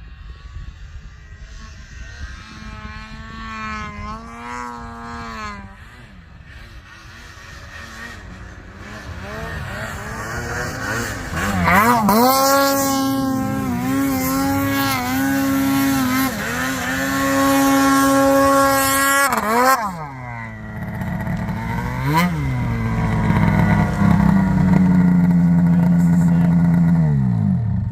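Two-stroke snowmobile engine revving up and down. It is fainter at first, then much louder from about halfway, holding high revs with two brief drops, and easing off near the end.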